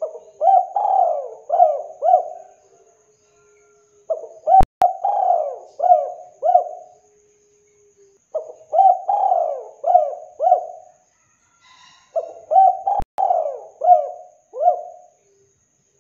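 Spotted dove (tekukur) cooing: four phrases, each a quick run of short coos, with pauses of about a second between phrases.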